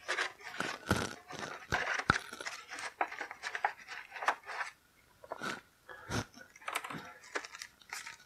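Hands rummaging in a plastic board-game box insert, picking up loose cardboard tokens: irregular clicks and rustles of small cardboard pieces, cards and paper against the plastic.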